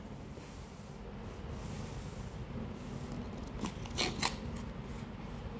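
Product packaging being handled during an unboxing: light rubbing, with a few soft clicks about two-thirds of the way through.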